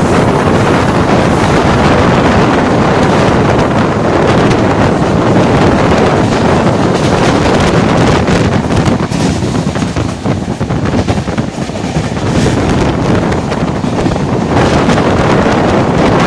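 Heavy wind buffeting the microphone from outside a moving express train, mixed with the steady running noise of the coaches on the track; it eases slightly about two-thirds of the way through.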